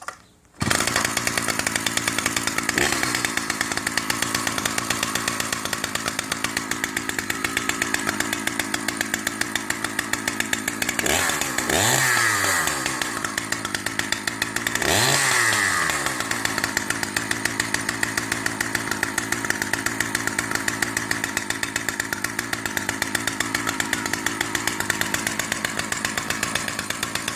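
A Husqvarna 2101 XP's 100 cc two-stroke chainsaw engine starts on a pull about half a second in and runs at idle with fast, even firing. It is revved up and let back down twice in the middle.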